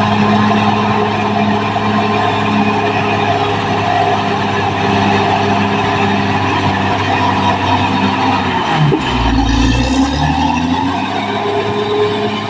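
Caterpillar D6R XL bulldozer's diesel engine running steadily under load. About nine seconds in there is a brief deep surge and a dip in engine pitch, which recovers over the next second or two.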